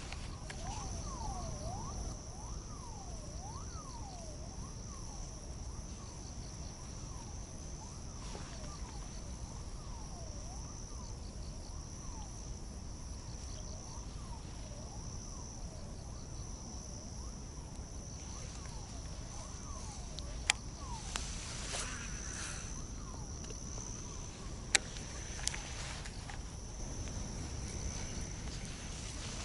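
Insects trilling steadily in a high, pulsing chorus, with a lower call sweeping up and down through the first part, over a low rumble. A few sharp clicks stand out in the second half.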